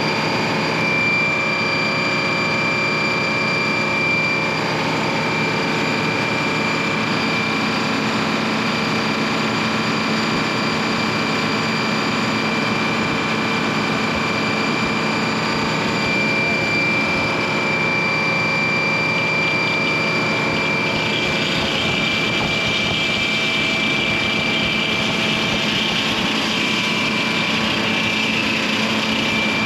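An engine running steadily under a constant high whine, with a rougher hiss building about twenty seconds in.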